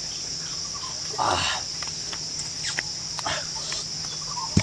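Steady high-pitched drone of a forest insect chorus, with a few short rustling noises and a sharp click near the end.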